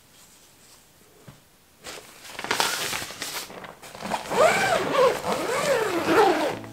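Zipper being pulled along the lid of a fabric storage organizer, starting about two seconds in, its pitch rising and falling as the pull speeds up and slows.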